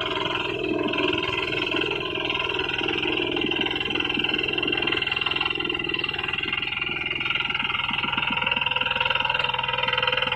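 Two-wheel hand tractor's single-cylinder diesel engine running steadily under load as the tractor plows a muddy rice paddy, with a regular low firing pulse that grows more distinct as it comes closer.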